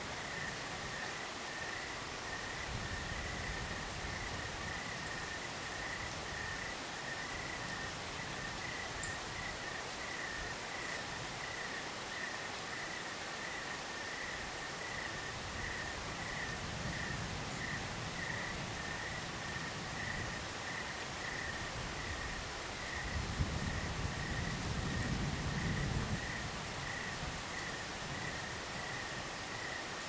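A cricket chirps in a steady, rapid pulse throughout, over a soft even hiss. Low rumbles of breeze on the microphone come and go in a few gusts, the strongest late on.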